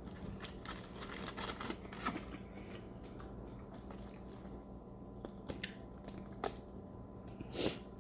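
Faint eating sounds: chewing with scattered small clicks and rustles of food and wrapper being handled, and one louder short noise near the end, over a steady low hum.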